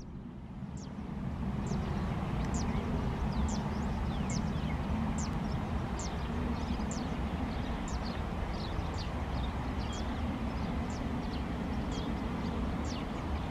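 Distant, steady low rumble of an Airbus A330-302's jet engines on the takeoff roll, building over the first second or two and then holding. Small birds chirp over it throughout: short, high, falling chirps about once or twice a second.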